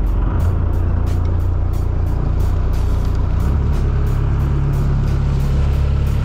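Yanmar Arashio boat's diesel engine running under way, a steady low drone with water rushing past the hull. The engine note rises a step about halfway through as it speeds up.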